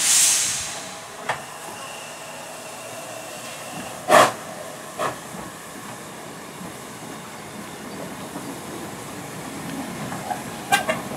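Hunslet Austerity 0-6-0 saddle-tank steam locomotive moving off slowly: a sharp hiss of released steam at the start, then two loud exhaust blasts about four and five seconds in, the first the loudest. A few metallic clanks come near the end.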